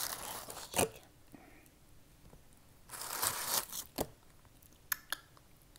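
Crispy fried chicken being handled and lifted out of a cardboard takeout box: rustling and crinkling of the box and the breading in two spells, at the start and about three seconds in, with a few sharp clicks and knocks.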